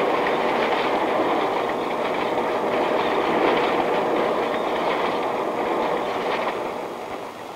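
Bread slicing and wrapping machinery running with a steady, rapid mechanical clatter, easing a little near the end.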